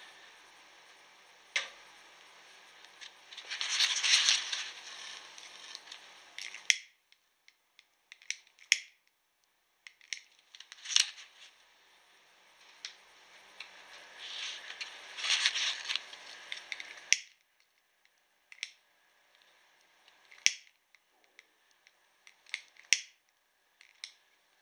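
A homemade salt-water arc device sizzling and crackling in the cup in two spells of a few seconds, each cut off suddenly, as if switched off. Sharp snapping clicks come in between.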